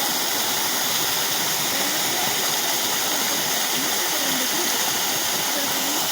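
Waterfall's falling water giving a steady, even rush that does not change.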